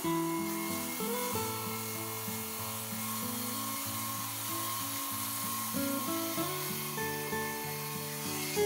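A table saw ripping a painted board lengthwise, a steady hissing cut, under background music.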